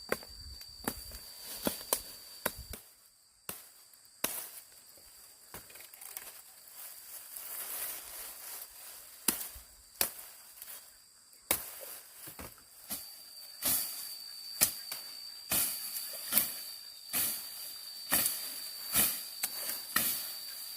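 Many sharp, irregular knocks or chopping strokes, coming in quick clusters, over a steady high-pitched insect drone.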